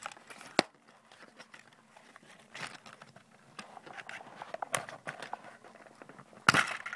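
Hands working a boxed Trackmaster James toy train out of its plastic and cardboard packaging: scattered clicks, knocks and rustles, with a sharp knock about half a second in and a louder rustle near the end.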